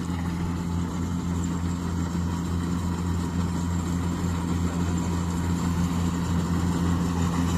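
Kubota DC-60 rice combine harvester's diesel engine running steadily, a low even drone.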